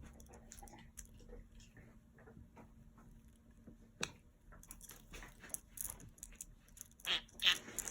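Budgerigar making faint clicking and nibbling sounds, which grow busier about halfway through, with two short, louder raspy bursts near the end.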